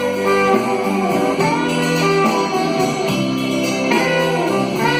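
Instrumental music of a song, led by plucked electric guitar lines over a steady backing, with no singing.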